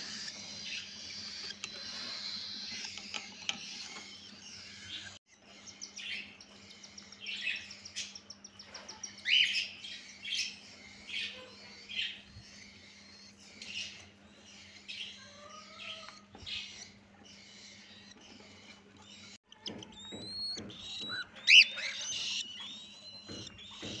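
Newly hatched cockatiel chicks begging as the male cockatiel feeds them: high, rapidly repeated raspy chirps in bursts, with a few clear rising whistled notes near the end.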